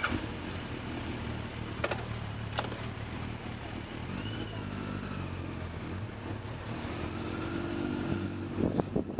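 Motorcycle engines idling steadily, with two sharp clicks about two seconds in. Near the end the engine sound turns louder and uneven as a motorcycle pulls away.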